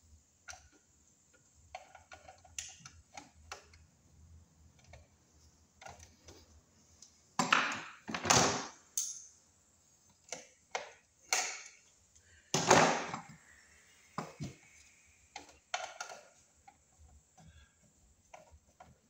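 Small scattered clicks, taps and scrapes of hands and a tool working a bare copper ground wire onto the terminal of a metal sub panel box. There are two louder, longer rustling scrapes, about seven and a half and about twelve and a half seconds in.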